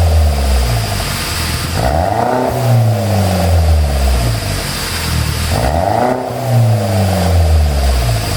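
2013 Peugeot RCZ's turbocharged four-cylinder engine revved sharply twice, about two and six seconds in, each time with the revs falling slowly back down. Its exhaust is tuned to pop and crackle on the overrun as the revs drop.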